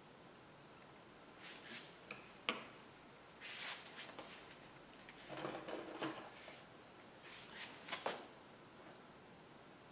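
Scattered handling noises: short bouts of rustling and light knocks as things are moved about on a covered work table, with a sharp click about two and a half seconds in and another near the end.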